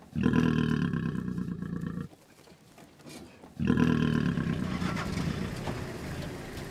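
A lion growling twice, each growl long and low and about two seconds; the second starts about three and a half seconds in and fades away.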